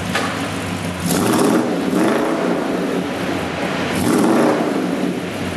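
Buick Riviera's V8 revving through a new stainless-steel exhaust, blipped twice: once about a second in and again about four seconds in, settling back toward idle between.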